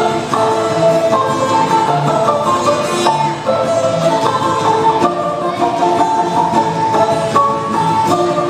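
Balalaika music: a fast plucked melody over lower accompanying notes keeping a steady pulse.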